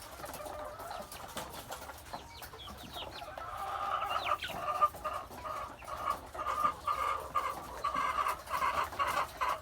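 Laying hens clucking: quiet at first with a few thin chirps, then from about three and a half seconds a steady, louder run of short clucks, several a second.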